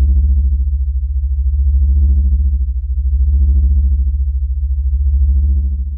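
Outro music: a deep, steady synthesizer drone under a pad that swells and fades in slow regular waves, about every second and a half.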